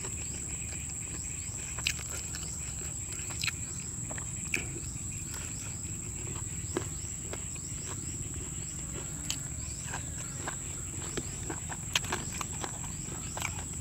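Close-up chewing and crunching of grilled field frog, with sharp crunches every second or so as the bones are bitten through. A steady high-pitched whine runs underneath.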